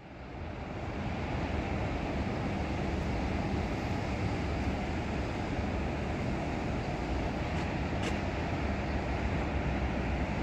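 Jet airliner's engines heard across an airfield: a steady, deep rumble that swells up over the first second and then holds even as the plane moves down the runway.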